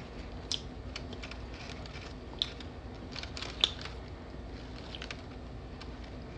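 Close-up eating sounds: scattered small clicks and crunches of chewing, the sharpest about two and a half and three and a half seconds in.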